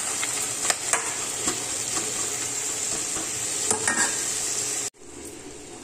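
Fenugreek leaves, potatoes and tomato sizzling in oil in a steel kadhai, stirred with a metal spatula that scrapes and clinks against the pan now and then. About a second before the end the sound cuts off suddenly, leaving a fainter hiss.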